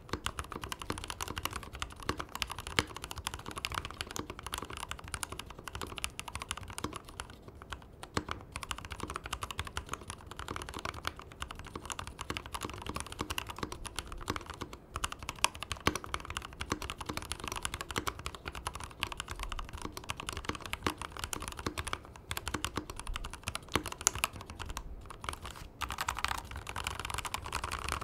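Typing on a mechanical keyboard fitted with Everglide Aqua King linear switches (67 g, polycarbonate housing and stem, factory-lubed) on a polished brass plate: a continuous stream of muted keystrokes, broken by a few short pauses.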